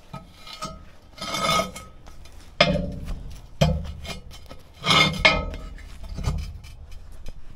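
Several rough scrapes and knocks, about five separate bursts, as the cover of a sewer inspection chamber is shifted and propped against the chamber's rim.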